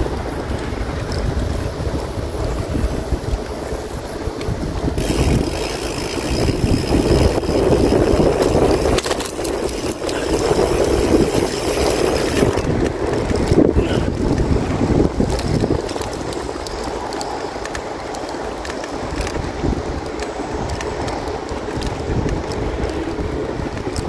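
Wind buffeting the microphone of a bicycle being ridden, with a steady rumble throughout. A higher, steady hiss joins for several seconds in the middle.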